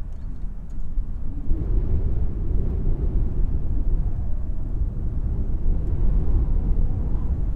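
Airliner's jet engines passing close by: a steady low rumble that swells about a second and a half in and stays loud.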